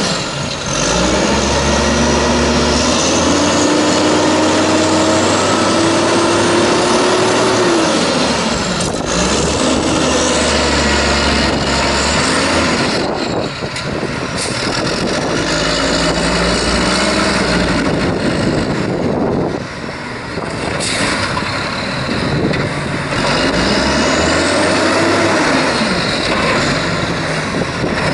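Natural-gas-converted WhiteGMC garbage truck engine running, revved up slowly and let back down, then revved again later, with a low rumble between.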